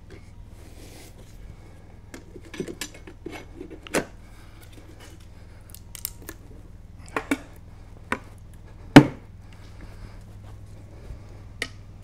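Steel tire spoons clinking and scraping against each other and the wheel rim as the last of a motorcycle tire's bead is levered over the rim. Scattered sharp clicks and knocks, the loudest about nine seconds in.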